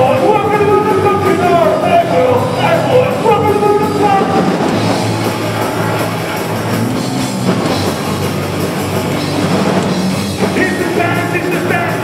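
Punk rock band playing live: a singer shouting the vocal over distorted guitars, bass and drums. The voice drops out about four seconds in for an instrumental stretch and comes back near the end.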